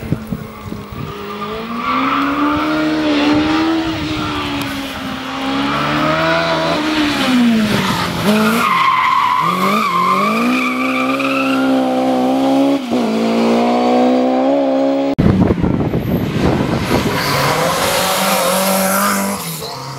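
Competition cars on a hill-climb course driven hard one after another, engines revving up and falling back as they shift through the gears, among them a Citroën 2CV's small flat-twin. Tyres squeal in the corners in the middle of the run.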